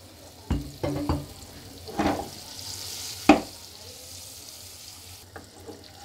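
Spice-coated boiled quail eggs sizzling in hot oil in a frying pan, with a spatula knocking against the pan several times, sharpest about three seconds in.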